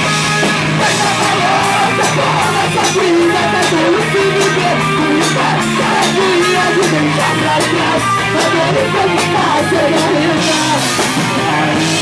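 A band playing loud rock music, with a singer over guitar and a steady drum beat.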